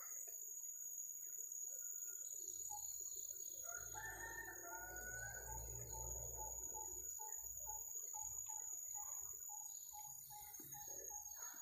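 Wild red junglefowl crowing, one call about three to seven seconds in, over a steady high drone of forest insects.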